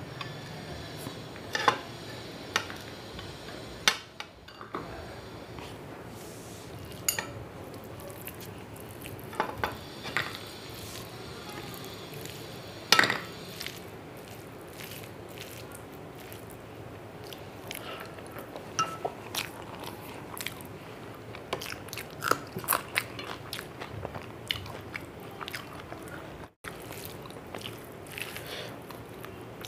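Bare hand mixing rice with spinach ghonto on a plate: soft wet squishing with scattered clicks and taps of fingers against the plate, one louder tap about 13 seconds in.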